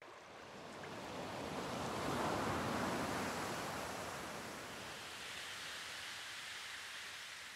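Sea surf: a wave washes in, swelling to a peak about two seconds in, then ebbing away as a long, slowly fading hiss.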